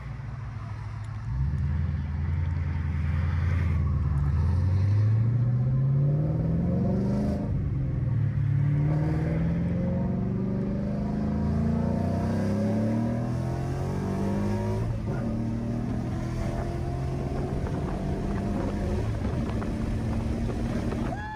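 2018 Ford Mustang GT's 5.0-litre V8, running an E85 tune and heard from inside the cabin, goes to hard throttle about a second and a half in. Its note climbs and drops back at each of several upshifts, then settles to a steadier, slightly quieter run near the end.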